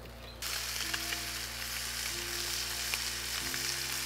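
Chopped crayfish meat frying in a hot pan, a steady sizzle that starts abruptly about half a second in, with a few light clicks of metal tongs turning the pieces.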